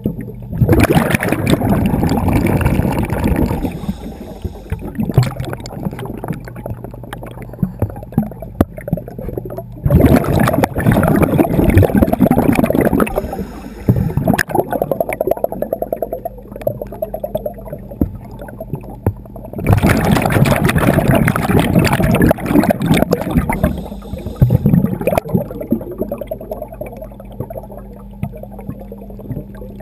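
A scuba diver's exhaled bubbles gurgling past an underwater microphone, in three loud rushes about ten seconds apart. A steady low hum runs underneath.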